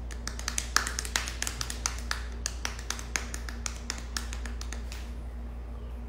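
Fingertips tapping on a smartphone touchscreen: a quick, irregular run of sharp clicks that stops about five seconds in, over a steady low hum.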